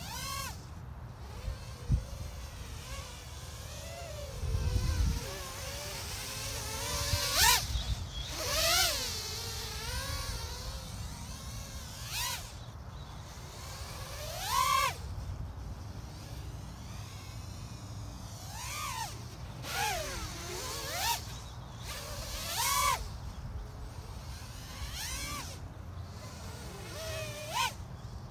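A small 3-inch FPV quadcopter on a 3S battery, with 1105 6000KV brushless motors and Gemfan 3025 props, flying acro: its motor-and-prop whine swoops up and down in pitch again and again as the throttle is punched and chopped and it sweeps past. There is a sharp click about two seconds in and a low rumble around five seconds.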